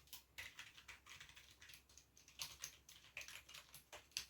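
Typing on a Rii RK100 "mechanical-feel" keyboard, not truly mechanical: a quick, uneven run of soft, quiet keystroke clicks.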